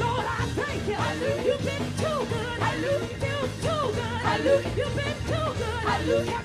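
Women singing gospel into microphones, with bending, ornamented vocal runs over a live band of drums and electric bass.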